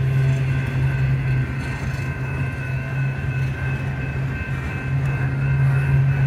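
Union Pacific double-stack container train rolling past at a grade crossing: a steady rumble of the well cars, with a faint steady high-pitched tone above it.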